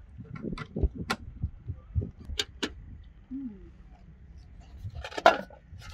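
Sharp metallic clinks and taps of a metal kettle lid and pots being handled, several single knocks in the first few seconds. A short louder burst of noise comes near the end.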